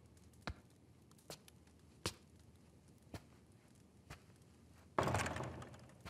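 Slow footsteps, hard soles clicking on a stone floor about once a second, then a louder, longer thud about five seconds in that fades over a second.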